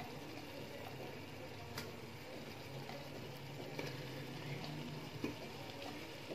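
Faint bubbling of biryani masala with koftas simmering in a cooking pot, with a few light clicks.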